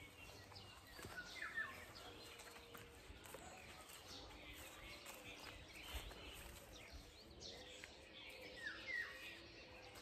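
Faint nightingale song: short chirps and trilled phrases now and then, a little louder about a second and a half in and again near the end.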